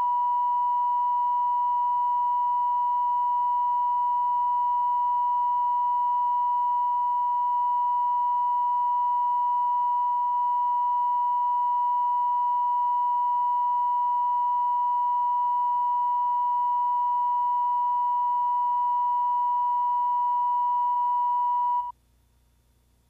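Steady line-up test tone, a single unwavering pitch that runs with colour bars as the audio reference for setting levels on a videotape. It cuts off suddenly near the end.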